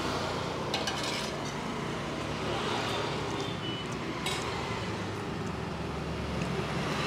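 Steady background hum and hiss of a roadside eatery, with a few light clinks of crockery as food is mixed by hand on a plate, about a second in and again after four seconds.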